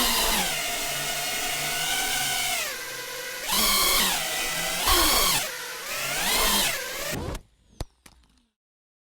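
FPV drone motors whining, the pitch rising and falling again and again with the throttle. About seven seconds in the whine cuts off suddenly, followed by two short clicks.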